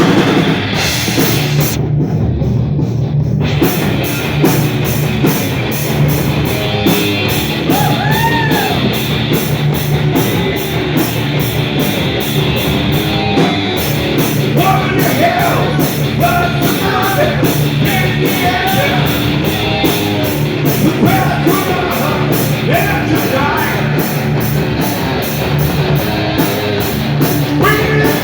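Rock band playing live: distorted electric guitar, bass and drums with a steady beat. The cymbals drop out briefly about two seconds in.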